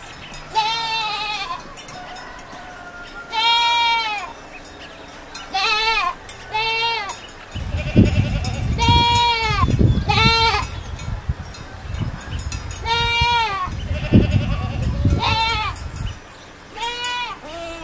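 Goats bleating: about nine separate wavering calls spread through, each rising then falling in pitch. A low rumble runs underneath through the middle stretch.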